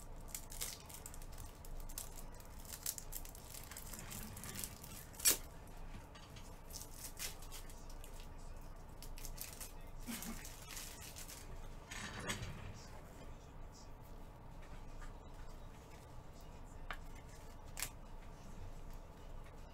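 Faint scattered clicks and rustling, with one sharper click about five seconds in.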